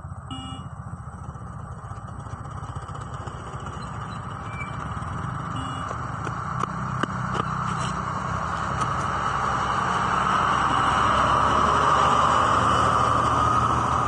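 A truck drives past, its engine and tyre noise growing steadily louder to a peak about three-quarters of the way through and starting to fade at the end, over a steady low rumble. A couple of sharp ticks sound near the middle.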